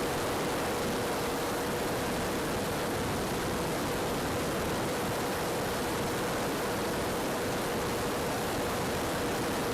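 E-flite Valiant electric RC airplane in flight, its motor and propeller giving a faint steady whine under a constant rushing hiss.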